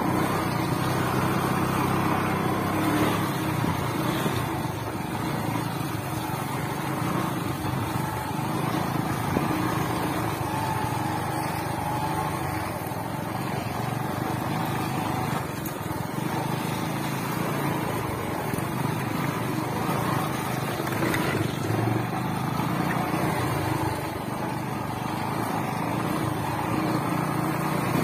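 Small motorcycles running steadily at low speed on a rough dirt track, heard from on one of the bikes.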